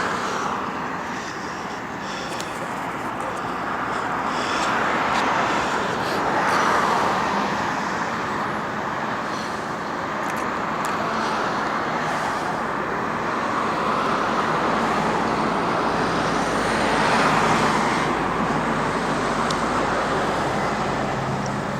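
Road traffic noise, a steady hiss of tyres and engines that swells and fades several times.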